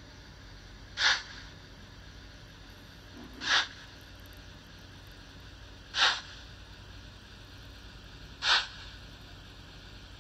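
Märklin 37018 S 2/6 model steam locomotive's steam sound effect: short hissing chuffs repeating evenly about every two and a half seconds, four times.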